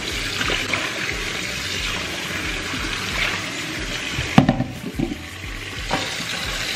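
Kitchen faucet running into a stainless steel sink while raw shrimp are rinsed under it. About two-thirds of the way through there is a sharp knock, then the water sound drops for a second or so before running again.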